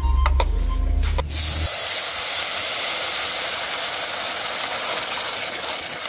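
Rice sizzling in butter in a pot on a gas stove, a steady hiss that starts about a second and a half in.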